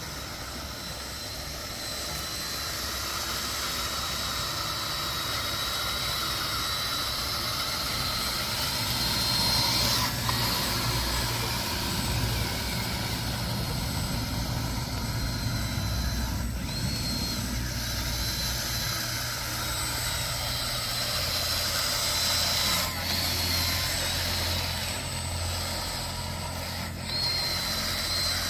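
Heavy construction machinery's diesel engine running steadily, with a high whine over a low drone and a few sharp knocks.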